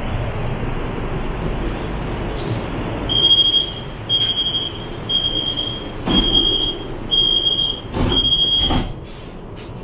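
Door-closing warning beeps of a CSR Zhuzhou 'AMY' light rail train: six short high-pitched beeps, about one a second, over the steady hum of the train interior. Near the end the sliding doors close with a couple of thuds.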